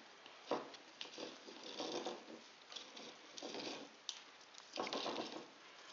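Hands winding thin floral wire around a wet ball of soil and moss: soft, irregular rustling and small clicks, with one sharper click about half a second in.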